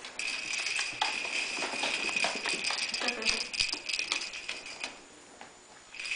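Small bell jingling with a high, steady ringing, mixed with light taps and clicks as the corgi puppy moves and plays; the ringing stops for about a second near the end, then starts again.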